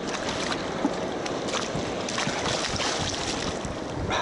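Water splashing and sloshing irregularly as a hooked fish thrashes at the surface beside the boat, with wind rushing over the microphone.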